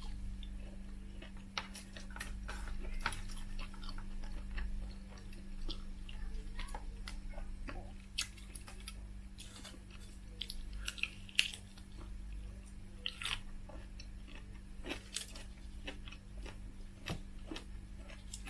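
Chewing and biting food close to the microphone, with many scattered small clicks and smacks over a faint steady hum.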